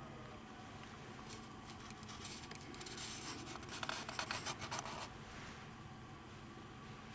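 Rough, irregular scratching and rustling close to the microphone, from about a second in until about five seconds in, over faint room tone.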